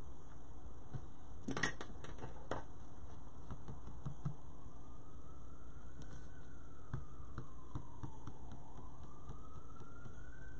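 A faint siren wails slowly up and down over a steady low hum, starting about three seconds in. A few soft knocks come near two seconds in.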